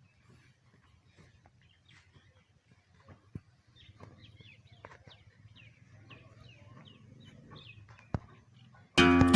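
Faint, repeated short bird chirps over a low steady hum, with a couple of sharp knocks. About nine seconds in, loud strummed acoustic guitar music starts abruptly.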